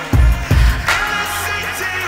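Backing music: a song with a steady beat, two heavy bass drum hits close together just after the start, over a held melody.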